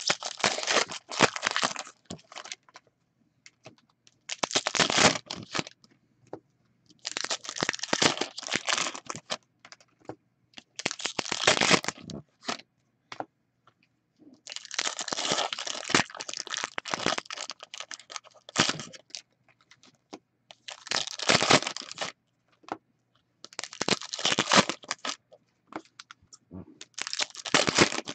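Hockey card packs (2015-16 SP Authentic) being torn open and handled by hand: about eight spells of wrapper crinkling and tearing, each a second or two long, with short pauses between.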